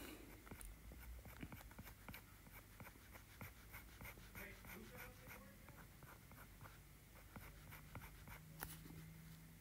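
Faint, irregular tapping and scratching of a stylus tip on an iPad's glass screen while sketching.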